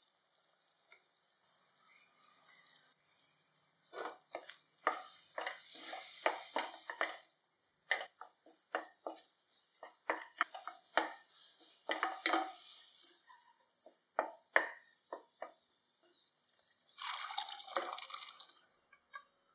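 Thick onion-tomato masala frying in a nonstick pan with a steady sizzle while a wooden spatula stirs it, giving many quick scrapes and knocks against the pan. Near the end, cooked chickpeas and their liquid are ladled in with a wet splash.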